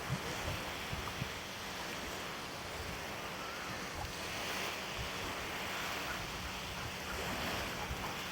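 Wind buffeting the microphone in steady gusts, over small waves lapping at a lakeshore.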